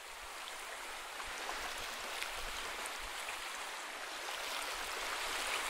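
Recorded ocean waves washing on a shore: a steady hiss of surf that swells slowly.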